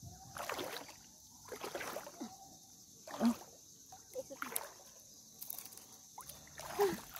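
Shallow water splashing and sloshing as someone wades and reaches into it by hand, in a series of short splashes with the loudest about three seconds in.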